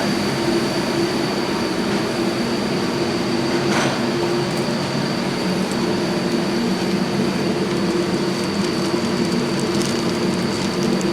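Machinery running steadily: a low hum with a thin high whine held over it.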